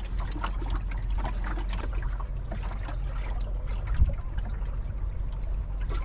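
Water chuckling and lapping along the hull of a small wooden sailing dinghy under way, over a steady low rumble, with a single knock about four seconds in.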